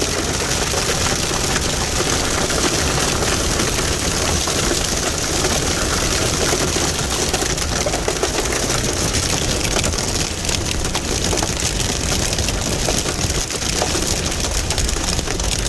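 Dense, relentless hail beating on a stopped vehicle, heard from inside the cab as a steady clatter of countless small impacts.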